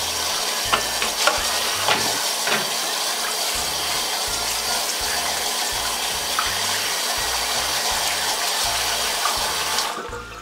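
Kitchen faucet running full onto raw catfish pieces in a bowl, with hands rubbing and squeezing the fish under the stream. A steady rush of water that stops just before the end.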